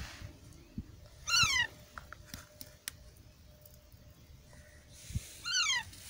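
Parakeet chick calling twice, each call about half a second long and falling in pitch: once a little over a second in and once near the end. A few faint clicks fall between the calls.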